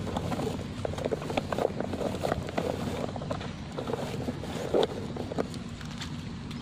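Wind rumbling on the microphone, with a run of crackling and rustling handling noises over the first five seconds or so, loudest near the five-second mark.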